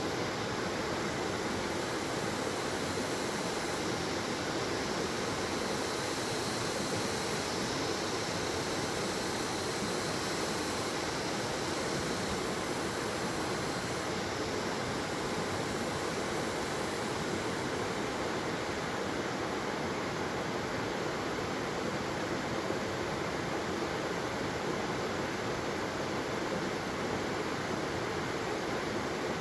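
Waterfall: a steady, even rush of falling and flowing water with no breaks.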